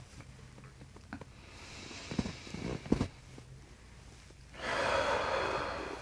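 A person breathing deeply: a faint inhale, a few soft short knocks of movement, then a long, noisy exhale near the end.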